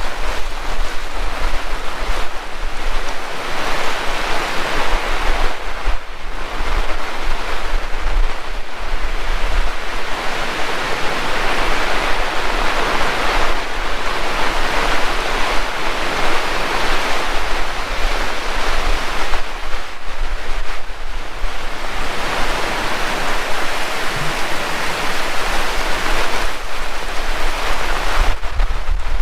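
Heavy rain pouring, its hiss swelling and easing every few seconds, with a low rumble of wind on the microphone.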